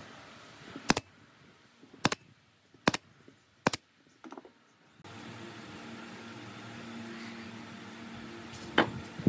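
Pneumatic nail gun firing four shots about a second apart, driving nails through a pine board into the legs beneath it. After that comes a steady low hum with one sharp click near the end.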